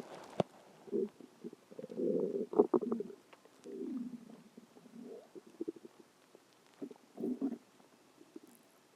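A person's stomach growling: a string of low gurgles and rumbles, the loudest cluster about two seconds in, one sliding down in pitch around four seconds, and a last short burst about seven seconds in.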